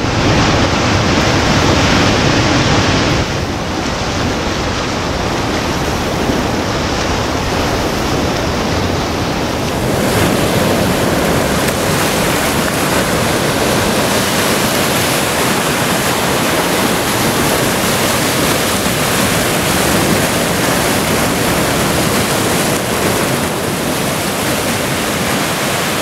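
Ocean surf breaking and rushing up the shore in a steady, loud wash of white water. Its sound shifts about three seconds in and again about ten seconds in.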